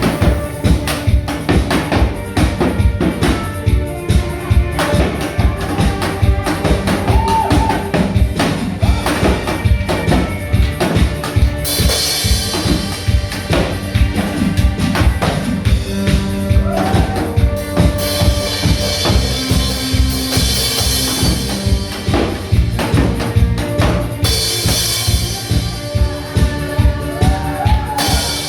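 Upbeat music with a steady, fast drum beat under a melody.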